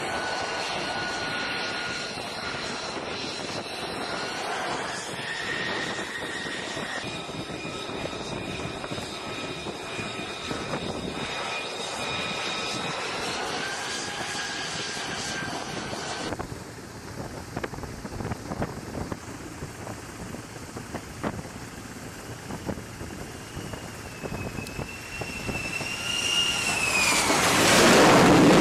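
Lockheed Martin F-35C's single Pratt & Whitney F135 jet engine whining steadily as the jet taxis and holds at the catapult, its pitch shifting a couple of times. Near the end a tone climbs and then falls as the engine roar swells to its loudest, with the jet being catapulted off the carrier deck.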